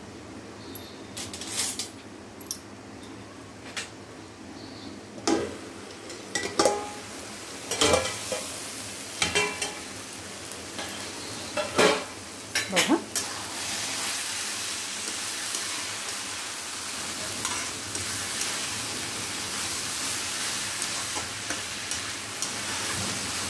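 Steel cookware clanking several times as the lid comes off the kadhai, then onion greens, moong dal and green peas sizzling steadily in the pan while a steel spatula stirs and scrapes. The dish has just been steamed covered.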